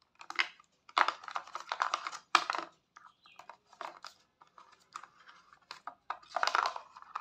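Moulded plastic packaging tray rustling and clicking in irregular bursts as a neckband earphone and its cable are pulled out of it.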